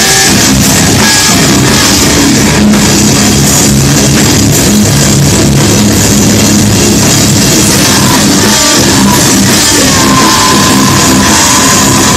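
A live rock band playing loud: electric guitars, bass and drum kit together, steady and dense throughout.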